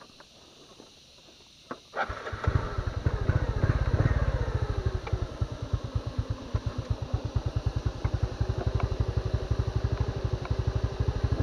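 Motorcycle engine starting suddenly about two seconds in after a near-silent stretch with a couple of clicks. It revs briefly, then settles into steady running with fast, even firing pulses.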